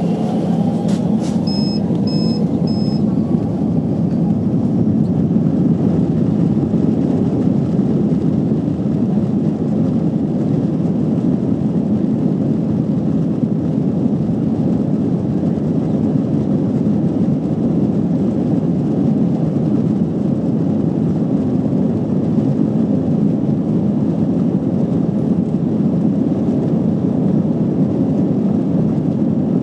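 Steady cabin noise of an Airbus A321-214 taxiing: the CFM56 engines running at taxi power and the rumble of the airframe rolling over the taxiway, heard from inside the cabin. Three short high beeps sound about two seconds in.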